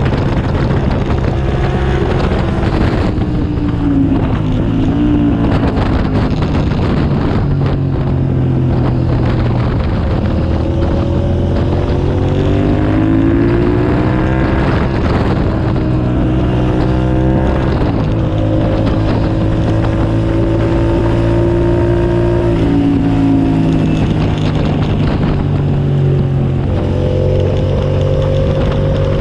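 2007 Suzuki SV650S's 645 cc V-twin engine running hard at speed. The revs climb and then drop suddenly several times, as on gear changes and braking, with wind noise over the microphone.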